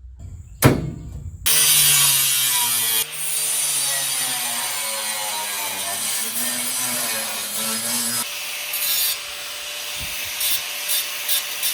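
A power tool cutting out a sheet-metal patch, its motor pitch wavering as it is loaded, after a sharp knock near the start. About eight seconds in it changes to a steadier, lighter run broken by short bursts.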